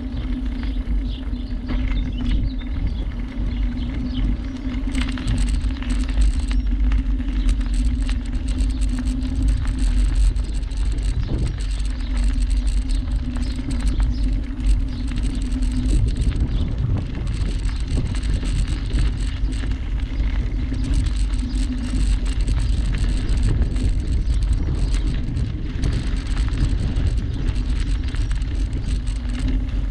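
Bicycle ridden along a canal towpath: steady tyre rumble with constant small rattles and clicks from the bike and surface, under a heavy low rumble of wind and vibration on the camera's microphone.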